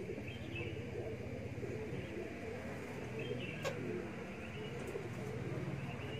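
Domestic pigeons cooing repeatedly in the loft, over a low steady hum, with one sharp click a little past halfway.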